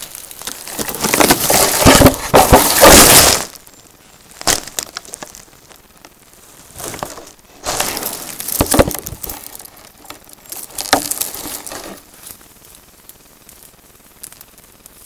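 Loud, close crackling, scraping and rustling as an animal, which the owner takes for a bear, paws at and rubs against the trail camera and crunches sticks beside it. The longest, loudest burst comes in the first three seconds, with shorter bursts around four, eight and eleven seconds.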